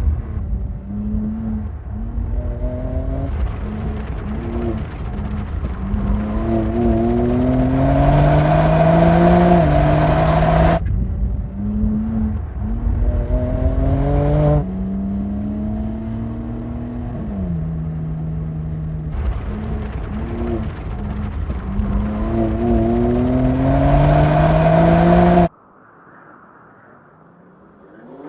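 BMW M2 CS's 3.0-litre twin-turbo inline-six accelerating hard, its pitch climbing and dropping back at each gear change, over several cut-together passes. Near the end it cuts to a much quieter stretch.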